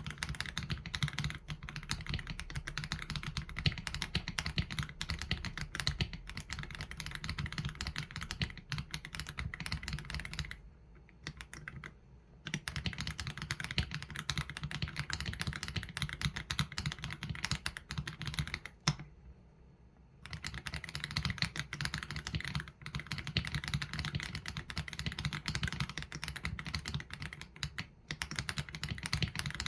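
Fast continuous typing on an AULA F87 Pro mechanical keyboard with Leobog Graywood V3 linear switches and PBT keycaps: a dense stream of keystrokes with a deep, low clack. It breaks off twice, at about 11 seconds and again near 19 seconds.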